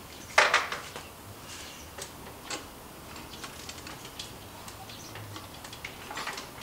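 Sparse metallic clicks and taps of hand tools and parts while a mini bike's rear wheel is fitted to its swingarm, with one louder clatter about half a second in.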